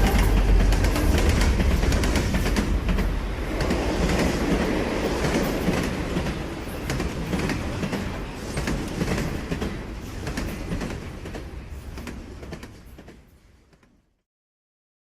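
A train running with a heavy low rumble and rapid wheel clicks. It fades away steadily and cuts to silence near the end.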